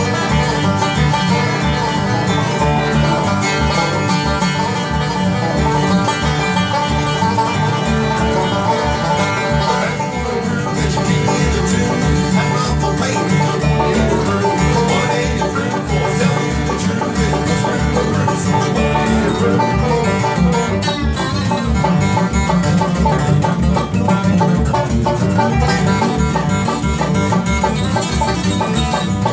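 Fast bluegrass played on banjo, acoustic guitar and upright bass, the bass plucking a steady, even pulse under quick banjo picking.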